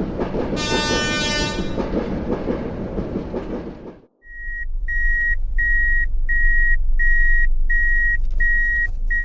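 A train rumbling past, with a horn blast of about a second near the start. After a short break about four seconds in, a Japanese railroad crossing's warning bell rings in an even repeating beat over a low hum.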